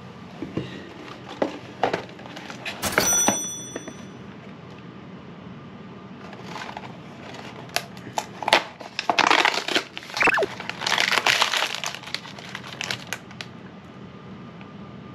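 Handling noises: scattered clicks and taps, a short bright ring about three seconds in, then bursts of crinkling and rustling, over a steady low hum.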